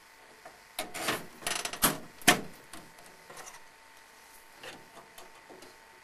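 A RAM module being pressed into a motherboard memory slot: a cluster of plastic clicks and scraping, the loudest a sharp click a little over two seconds in, then a few softer clicks.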